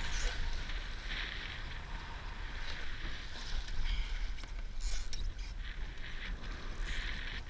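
Laser sailing dinghy under way in strong wind: a low rumble of wind on the microphone, with water rushing and splashing along the hull in irregular spells of hiss.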